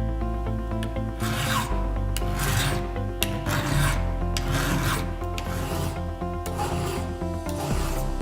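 File rasping across chainsaw chain cutters: about seven sharpening strokes, roughly one a second.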